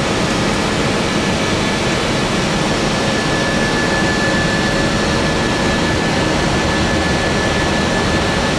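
Steady flight-deck noise of an Airbus A320 in the climb after takeoff: rushing airflow and jet engine noise, with a thin steady whine above it.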